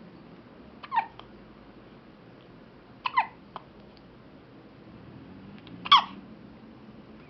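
Hiccups: three short, high-pitched hiccups, each a quick slightly falling yelp, about a second in, about three seconds in, and about six seconds in, the last the loudest.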